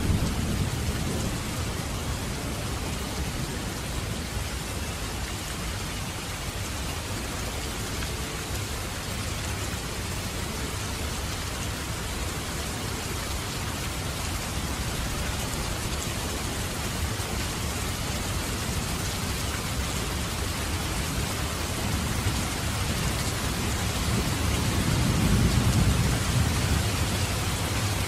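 Steady rain falling on a translucent canopy roof and dripping from its edge, an even hiss, with a low rumble swelling just after the start and again about 25 seconds in.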